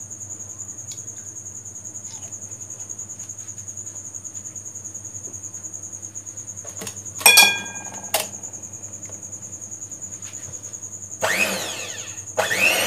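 Electric hand mixer switched on near the end, its motor whining up in pitch, running about a second, stopping, then starting again. Before it, crickets chirp steadily in the background, and a sharp clatter comes about seven seconds in.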